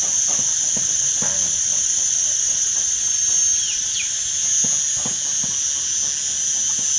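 A steady high insect drone that does not change. Over it come a few soft knocks or crackles, and two short faint chirps about halfway through.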